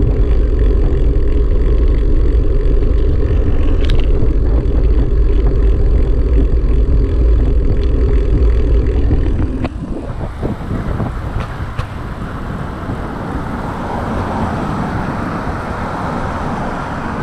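A car driving, heard from inside the cabin: a steady low road-and-engine rumble. About ten seconds in, the rumble drops and a rushing wind noise takes over.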